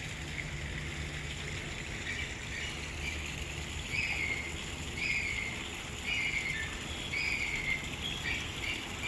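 A bird calling repeatedly: short, slightly falling chirps about once a second, starting about two seconds in, over a steady low background hum.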